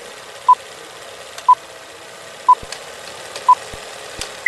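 Vintage film-leader countdown sound effect: a short beep once a second, four in all, over a steady film hiss with scattered crackles. A single higher beep comes right at the end.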